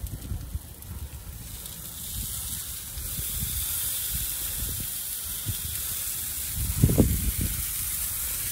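Pork ribs hissing and sizzling on a large charcoal grill, the hiss growing stronger about three seconds in. Under it is a low wind rumble on the microphone, with a loud thump about seven seconds in.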